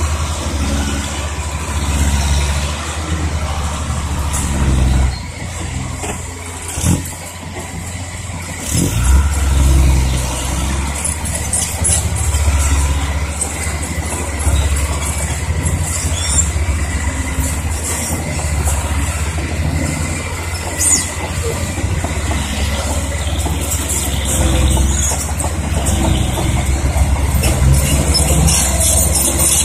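Diesel engines of loaded Isuzu ten-wheel dump trucks running as the trucks drive across rough dirt, the engine sound swelling and easing, with two short knocks about seven and nine seconds in.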